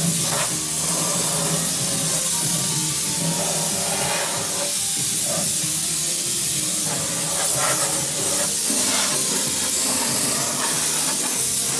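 Compressed air hissing steadily from a spray-painting setup in the shop, a continuous high hiss.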